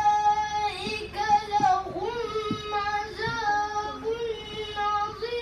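A young boy chanting Quranic recitation in the melodic tilawah style, holding long, ornamented notes with short breaks for breath between phrases.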